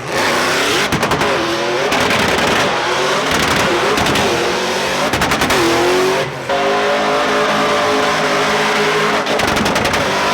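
Drift car's engine revving up and down hard, over and over, while its tyres squeal and skid through burnouts and donuts. There is a brief break about six seconds in.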